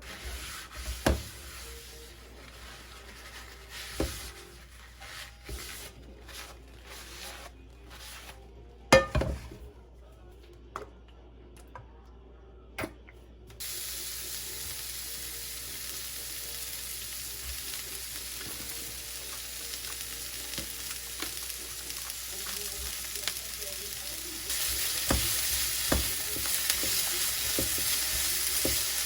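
A few knocks and clinks of cooking utensils, then food starts sizzling in a hot frying pan about halfway through. The sizzle gets louder about 25 seconds in, with spatula taps and scrapes from stirring.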